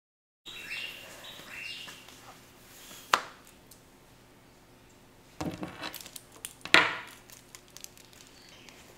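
About half a second of silence, then quiet room sound with faint high chirps in the first two seconds and a few sharp clicks and knocks of handling, the loudest about three seconds in and again near seven seconds.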